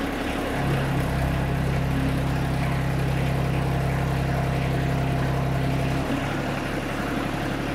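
TYM T254 sub-compact tractor's diesel engine running while its front-loader hydraulics lift a heavy pallet of salt bags on pallet forks. The engine's tone changes and grows stronger as it takes the hydraulic load about half a second in, then falls back to a plain idle when the lift stops about six seconds in.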